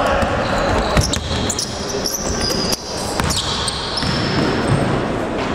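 Basketball game in a gym: the ball bouncing on the court in sharp knocks, the loudest about a second in, with short high-pitched sneaker squeaks on the floor, all echoing in the hall.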